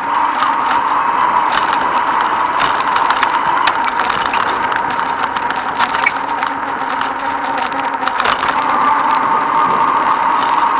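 Bicycle riding noise on a paved path: a steady hum of rolling and movement with frequent small clicks and rattles as the bike goes over the pavement.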